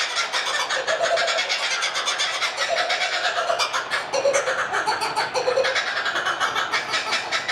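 Animal laughing sound effect: a fast, dense chattering with a few short hoots breaking through at intervals.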